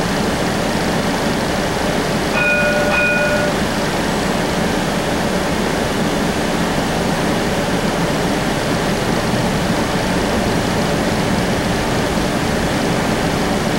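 Steady rumble and hiss inside a Cincinnati Bell Connector streetcar, with a brief electronic tone sounding for about a second, about two and a half seconds in.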